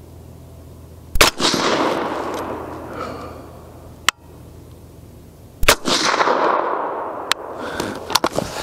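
Suppressed 6.5 Grendel AR-15 rifle firing two shots about four and a half seconds apart, each dying away over about two seconds. A few light clicks follow near the end.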